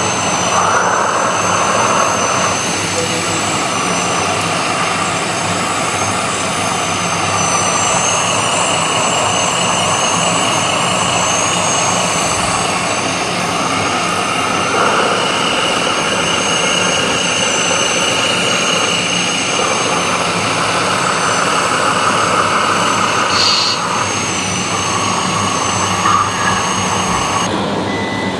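Radio-controlled model construction trucks running, their electric motors giving a steady high whine, with lower whining notes that start and stop every few seconds as the models drive and work.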